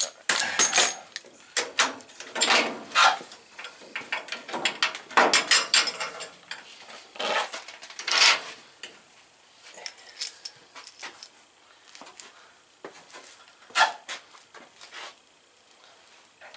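Steel suspension parts and hand tools clinking and knocking as the front upper control arm is worked loose and taken off. Irregular metallic clanks, busy in the first half and sparser later.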